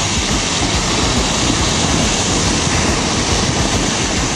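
LonKing excavator's diesel engine running hard as its bucket shoves rock over a steep slope, with loose rock and rubble sliding down below: a steady, loud noise.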